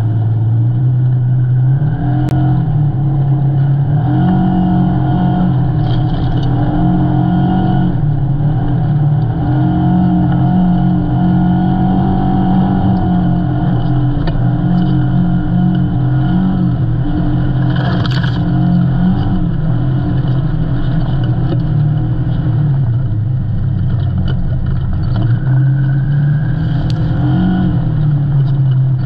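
Side-by-side UTV engine running under way on a snowy track, its note rising and falling with the throttle, heard from inside the open cab. A few short knocks come through, one about two seconds in and one a little past the midpoint.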